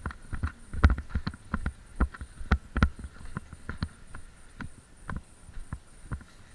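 Quick footsteps of a player moving on a hard floor: uneven thuds about three a second, thinning out after about four seconds.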